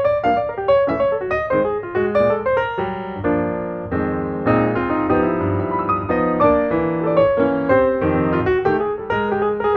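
Background piano music: a steady run of quick piano notes.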